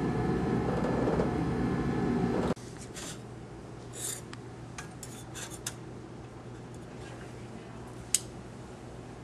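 A dense, steady noise that cuts off abruptly about two and a half seconds in. Then, over a low hum, a scatter of small sharp clicks and clatter as glass slides are handled on an inverted microscope's stage, the sharpest about eight seconds in.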